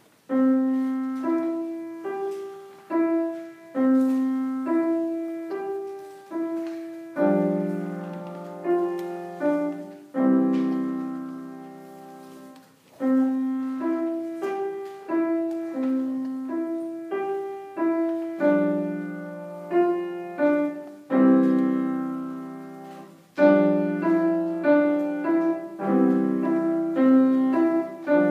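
Grand piano played solo, a slow classical piece of separate notes and chords, each note striking and then dying away; near the middle one chord is held and fades for a couple of seconds before the playing goes on.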